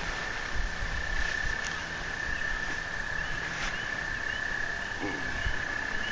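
A steady, high-pitched trill from a calling animal, unbroken for the whole time, with a few faint short chirps above it and some low thumps.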